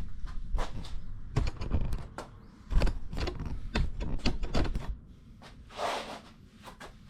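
Irregular knocks, clunks and low thuds of gym equipment being moved and set up by hand, with a short hiss about six seconds in.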